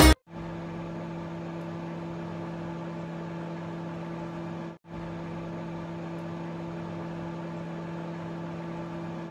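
Severin countertop microwave oven running: a steady low hum with an even whirring fan noise, broken once by a short break about halfway through.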